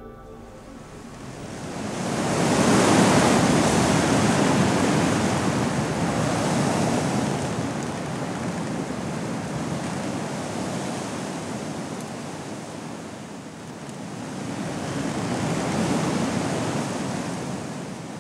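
Ocean surf: waves surging and washing in a steady rush of water that swells about three seconds in, slowly ebbs, and swells again near the end.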